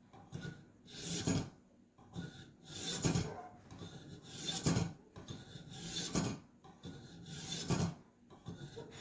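Ka-Bar knife blade drawn through the Warthog sharpener's 1000-grit hones in long rasping strokes, about six of them, one every second and a half or so. Each stroke grows louder and then stops short.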